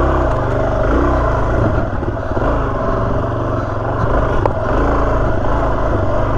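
Suzuki DR-Z400S single-cylinder four-stroke engine pulling in first gear over rocky, technical trail, its pitch rising and falling as the throttle is worked.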